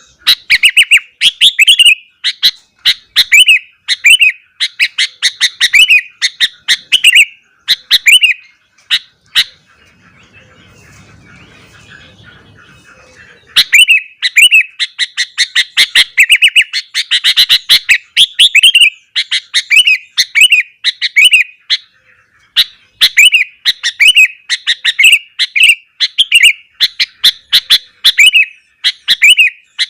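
Sooty-headed bulbul singing: loud, short chirping phrases repeated in quick succession. The singing stops for about four seconds in the middle, leaving only a faint low rumble, then resumes.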